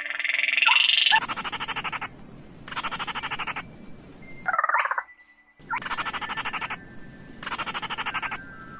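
Calls of small crakes: fast, dry rattling trills, each under a second long, repeating about every second and a half. A louder, higher call comes at the start, and a call falling in pitch comes about halfway.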